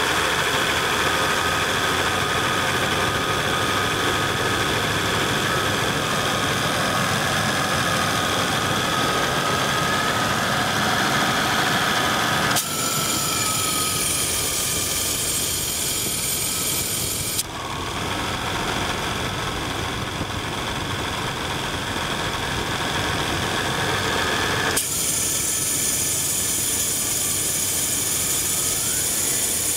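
A 1995 Chevrolet Blazer's A/C compressor clutch cycling over the running 4.3L Vortec V6. The compressor runs engaged for about twelve seconds, cuts out with a click, engages again about five seconds later, runs for about seven seconds, cuts out again, and engages once more near the end. It switches on and off constantly while still cooling, which the owner puts down to a dead clutch, with iron filings visible at the compressor.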